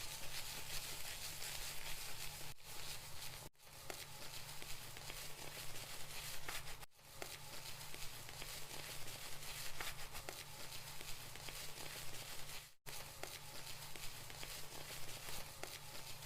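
Fingers scrubbing and rubbing through hair and scalp close to the microphone: continuous crackly rustling with small ticks, briefly cut off three times.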